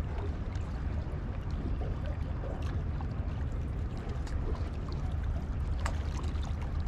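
Steady seaside background: a low rumble of wind on the microphone with soft lapping water and a few faint clicks.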